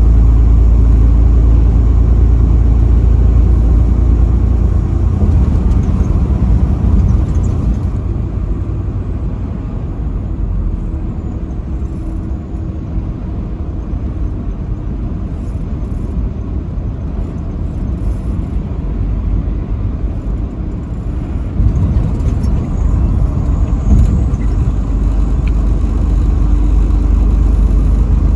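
Truck engine and road noise while driving on the highway, a steady low rumble. It eases off for a stretch in the middle and builds again about two-thirds of the way in.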